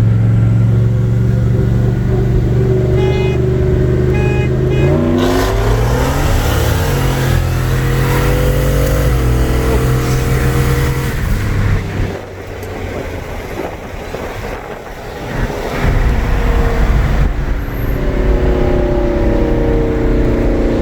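Turbocharged 1996 Ford Mustang Cobra's 4.6-litre V8, heard from inside the cabin, running steadily at the line, then accelerating hard with engine pitch climbing and dropping at a gear change. About twelve seconds in it comes off the throttle and goes quieter, then runs loud and steady again. Two short beeps sound a few seconds in, before the launch.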